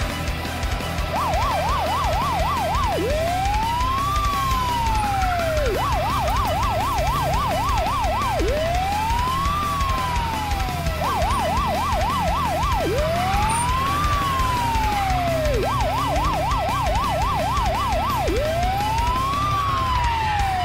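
Police car siren, switching back and forth between a fast warble of about four cycles a second and a slow rising-and-falling wail, four times over.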